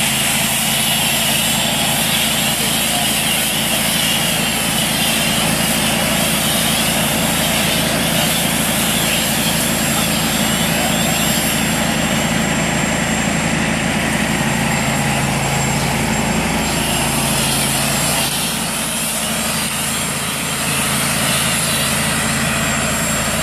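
Pressure washer running with a steady motor drone, and the hiss of its spray lance washing down a car.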